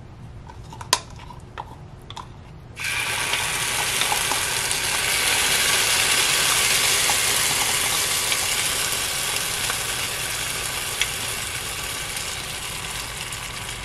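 Cheese-ball batter sizzling, really loud, on the hot nonstick plate of a Dash mini griddle. The sizzle starts suddenly about three seconds in as the batter hits the plate, then slowly eases off. Before it come a few light clicks and taps.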